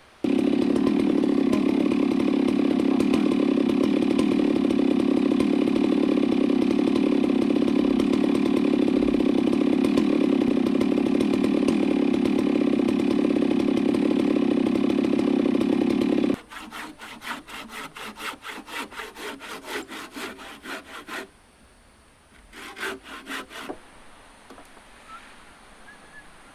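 Chainsaw running at full throttle with a steady pitch, cutting wood, cutting off suddenly about two-thirds of the way in. Then a hand saw takes over in quick even strokes through wood, about four a second, with a short second run of strokes near the end.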